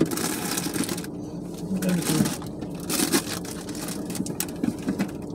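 Paper takeout packaging rustling in irregular bursts, with small clicks and knocks as it is handled.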